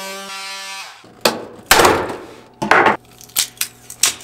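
A cordless power tool cutting into a plastic battery case, its motor tone falling and stopping within the first second. Then several loud cracks and scrapes as the cut plastic case is pried apart by hand, with smaller clicks near the end.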